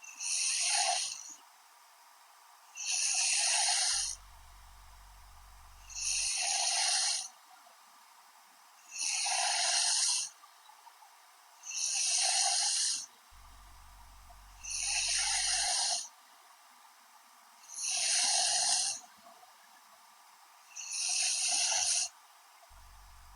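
A young woman snoring in her sleep: eight breathy, hissing snores, one about every three seconds, each lasting about a second.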